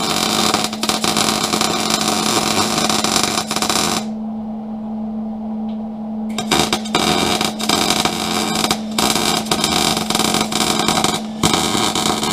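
Wire-feed welder arc crackling steadily while tack welds are laid overhead. The arc stops about four seconds in, leaving only a steady low hum for a couple of seconds, then starts again in several short runs.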